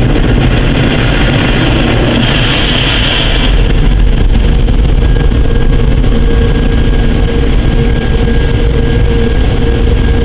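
Automatic car wash equipment running with a loud, steady rumble and rushing noise. About halfway through, a steady machine hum at two pitches joins in.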